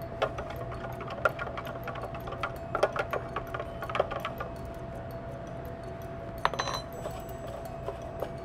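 A fork clicking and tapping against a clear plastic container while mixing egg wash, in irregular clicks over the first few seconds and a short cluster near the end. A steady hum of kitchen equipment runs underneath.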